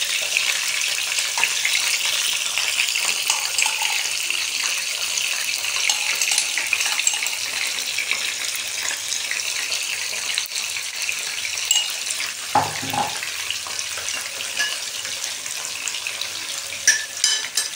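Stuffed eggplants frying in hot vegetable oil in a kadai, a steady sizzle. A short knock about two-thirds of the way through and a few clicks near the end.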